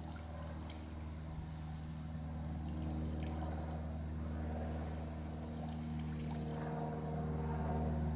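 A steady low mechanical hum of a motor or engine running, swelling slightly about three seconds in and again near the end, with a few faint ticks above it.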